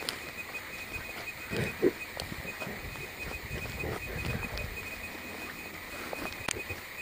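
Footsteps through moss, twigs and fallen branches on a forest floor, with a dog panting and snuffling close by. The loudest scuff comes a little under two seconds in.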